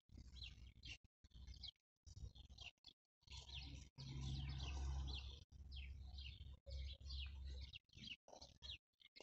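Small birds chirping, a rapid run of short, high, downward-sliding chirps repeated many times. A low rumble swells underneath a few seconds in and again later.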